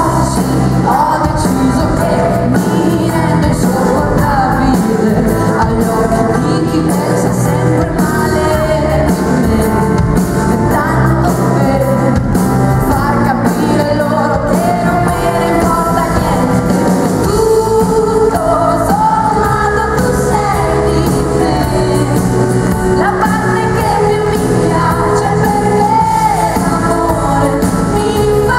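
Female pop singer singing live with a band, a loud, continuous melody over full band accompaniment.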